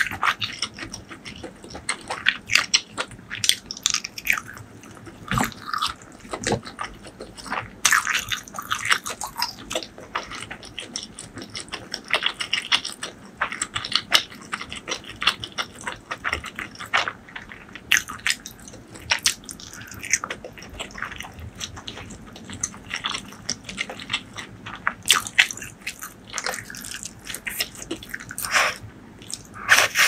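Close-miked eating sounds: wet chewing, smacking and small clicks of the mouth as a steamed dumpling is bitten and chewed, in an irregular run of short sounds. Near the end a mouthful of spicy noodles is taken in.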